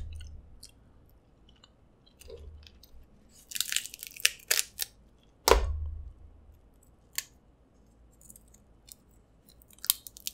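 Snow crab leg shells cracking and snapping as they are broken open by hand, close-miked, mixed with wet chewing and mouth clicks. The cracks come in scattered sharp snaps, bunched together in the middle, with the loudest, heaviest crack about five and a half seconds in.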